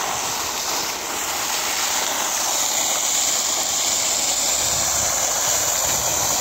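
Sulphur-water fountain jet splashing into its stone basin, a steady rush of falling water.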